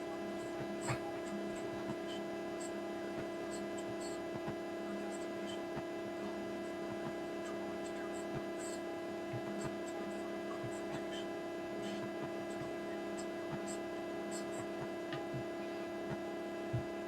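Steady hum holding a few fixed pitches, with faint scattered ticks over it.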